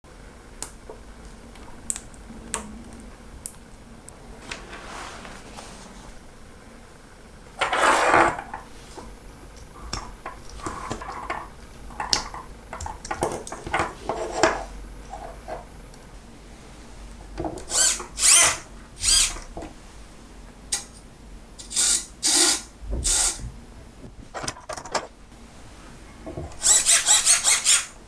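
Blue micro hobby servo whirring in several short bursts as its gear motor drives the horn, the longest lasting about a second, between small clicks and rustles of wires and parts being handled.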